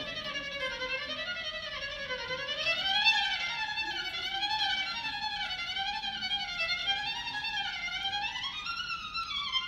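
Solo violin playing a slow melody with a wide, steady vibrato, the line climbing higher about two and a half seconds in and again near the end.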